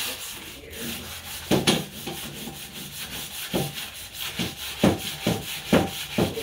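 Hand sanding of red-painted steel trailer frame pieces: a scratchy rubbing with louder back-and-forth strokes that come faster in the second half. The factory red paint is being scuffed so the new paint will stick.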